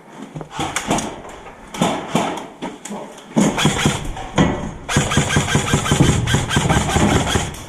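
Airsoft gun firing: scattered sharp shots at first, then a fast, dense rattle of rapid shots that grows louder about three seconds in.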